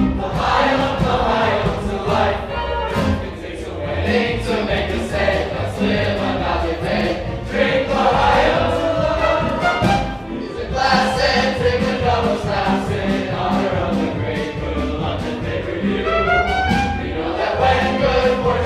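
Upbeat stage-musical dance music: a chorus of voices sings over instrumental accompaniment with a steady beat.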